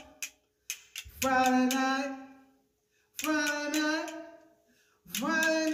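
A woman singing two long held notes into a live microphone, each fading away, with a quick run of sharp castanet clicks in the first second and a half.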